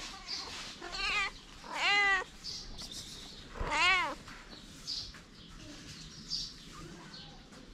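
A cat meowing three times, each call arching up and falling in pitch; the first call wavers, the last is the loudest.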